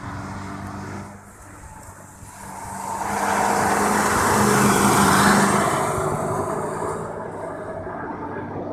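A car at racing speed passing close by. The engine and tyre noise swell over a few seconds, peak about midway with a drop in engine pitch as it goes by, then fade away.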